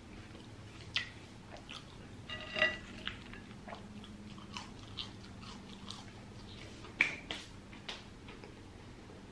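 Close-up chewing of crispy seasoned french fries: a run of sharp crunches and mouth clicks, the loudest about a second in, around two and a half seconds in, and at about seven seconds.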